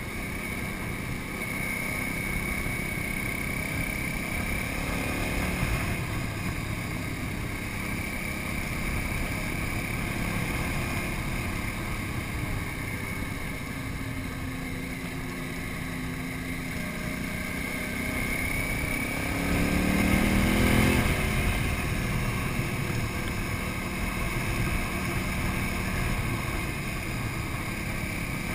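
KTM 950 Super Enduro's V-twin engine running steadily at road speed. About twenty seconds in, its note rises and grows louder for a couple of seconds, then settles back.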